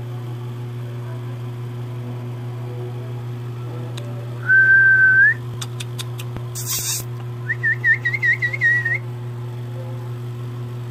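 A person whistling, over a steady low hum: one held note about halfway through that slides up at its end, then a quick warbling whistle lasting about a second and a half. A few light clicks and a short hiss fall between the two whistles.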